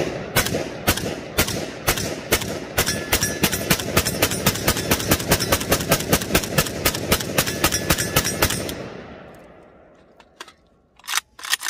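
WBP Jack AK-47 rifle in 7.62×39 firing a long string of Wolf 123-grain full metal jacket rounds: shots at about two a second, speeding up to about four a second, each with a ringing echo. The rifle cycles the whole magazine without a stoppage. The echo fades away, and a few light metallic clicks of rifle handling come near the end.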